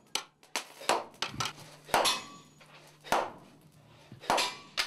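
Hand forging: a hammer striking a red-hot iron blade held in tongs on a stone anvil, a series of sharp metallic blows with short ringing, irregularly spaced at about two a second.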